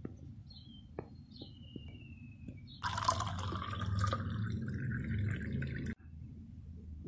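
Water poured from a bottle into a glass tumbler, splashing and filling from about three seconds in and cutting off abruptly near the six-second mark. Before it, only a low hum with a few faint clicks.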